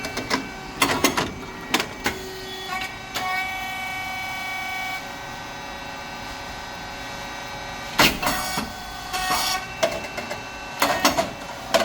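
Puffed rice cake machine running: its hydraulic motor and pump give a steady whirring hum, with scattered mechanical clicks and clatter, and a sharp loud burst of noise about eight seconds in followed by more clattering.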